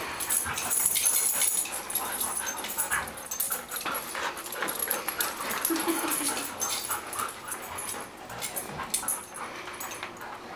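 Three Labrador retrievers in a tug-of-war over a toy, growling and whining amid scuffling. The growls are play, not a serious guarding warning.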